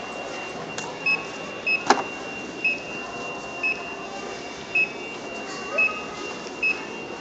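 Checkout barcode scanner beeping about seven times, roughly once a second, as folders are scanned one after another. A single sharp knock sounds about two seconds in.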